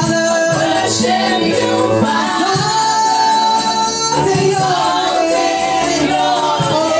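Live gospel vocal group of women singing together into microphones, with the lead voice holding a long note about three seconds in.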